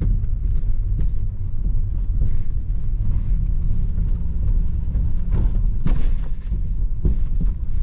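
A vehicle's tyres rumbling across the deck of an old-fashioned bridge, a loud steady low rumble broken by a few sharp knocks and clunks from the deck, two of them close together a little past the middle.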